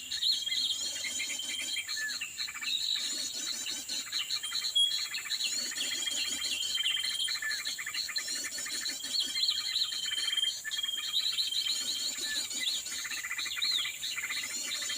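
Small birds chirping and calling continuously, with quick repeated chirps and short whistled notes, over a steady high-pitched insect drone.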